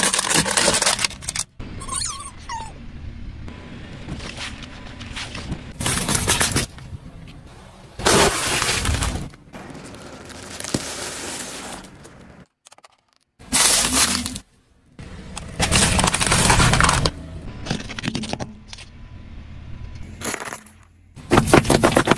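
A car tyre rolling over and crushing one object after another: aluminium soda cans crumpling and bursting, a pack of caramel popcorn crunching, and cartons of juice bursting open near the end. Each crush gives a loud crackling, cracking burst lasting about a second, separated by quieter stretches and short cut-off gaps.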